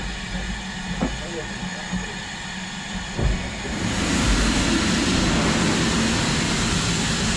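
LMS Black 5 steam locomotive standing with a steady low hum and a couple of light knocks. About four seconds in, a loud, steady hiss of steam starts blowing out low at the engine's front end.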